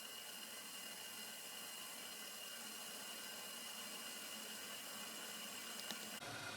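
Faint steady hiss of a pot of dark beer heating on a stove, not yet simmering, with a thin high tone over it. A small click comes near the end, and then the background changes abruptly.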